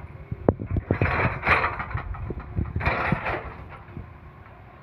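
Heavy excavator working: a quick, irregular run of metallic clanks and knocks with two bursts of rough scraping over a low engine rumble, dying down near the end.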